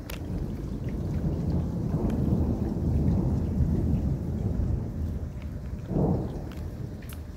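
Thunder rumbling long and deep, swelling and then fading, with a second shorter rumble about six seconds in, over steady rain with scattered drops tapping close by.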